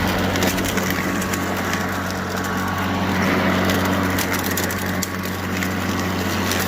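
Greenworks 80V battery push mower running in mulching mode: a steady electric-motor and blade hum with a continuous crackle of small ticks as the blade chops up dry leaves.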